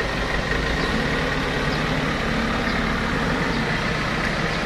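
An engine running steadily at idle, with an even low hum.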